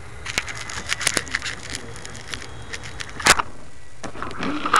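Handling noise from a small RC plane's keychain camera held against clothing: irregular rustling and clicks, with one sharp knock about three seconds in. A voice begins near the end.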